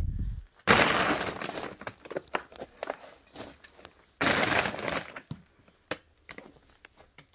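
Crunching and rustling of a debris pile of plastic bags and tarp being disturbed underfoot: two loud crackly bursts about three seconds apart, with scattered clicks and snaps between and after.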